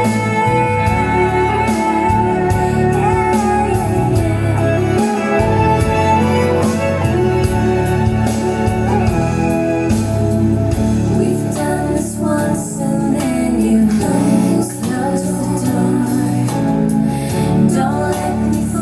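A song with singing and instruments played back through a JBL MK10 passive loudspeaker driven by an AD MC1000 power amplifier, at a loud, steady level.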